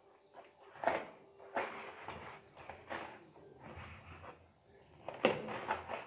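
A taped parcel being opened by hand: irregular rustling and crinkling of packaging, with the busiest, loudest handling near the end.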